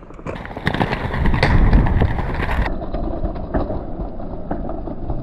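Inline skates rolling and grinding along a ledge, a rough scraping noise with scattered clicks and knocks from wheels and frames hitting the edge. About halfway through the sound turns duller.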